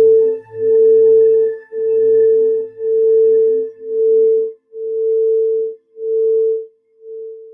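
Singing bowl ringing with one steady tone that swells and dips about once a second, growing fainter near the end.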